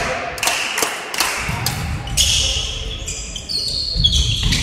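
Volleyball being bounced and struck in a sports hall: a series of sharp hits, each ringing on in the hall's echo.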